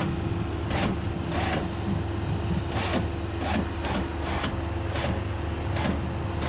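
Bobcat S185 skid-steer's diesel engine running steadily under load, driving a homemade bale shredder as it spreads a bale, with irregular clattering knocks a few times a second from the shredder working.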